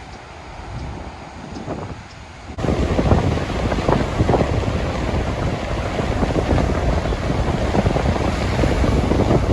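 Storm wind buffeting the microphone in gusts. It jumps abruptly much louder about two and a half seconds in.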